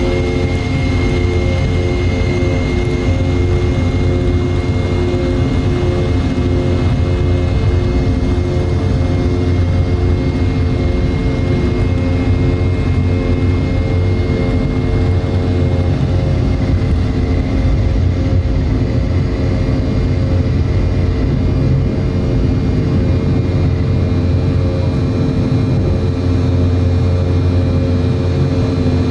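Cabin noise of a Boeing 717-200 during takeoff: its twin rear-mounted Rolls-Royce BR715 turbofans running steadily at high power, a loud drone with a deep hum and a high whine over the rush of air.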